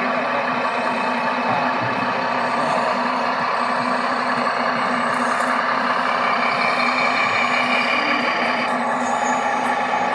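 Scale RC trucks' sound modules playing steady diesel truck engine noise. A higher whine joins about six seconds in and cuts off suddenly near the end.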